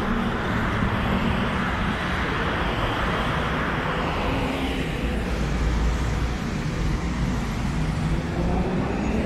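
Steady city road traffic from the streets below: a continuous low rumble with a broad hiss of passing vehicles.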